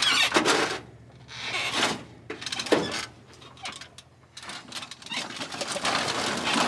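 Yamaha sport quad rolling backward down aluminium loading ramps out of a pickup bed. The ramps clank and rattle in irregular bursts, with one sharp clank near the middle.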